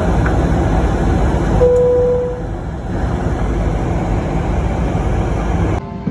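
Loud, steady rumbling of a vehicle, with a short horn-like tone about two seconds in; the sound changes abruptly near the end.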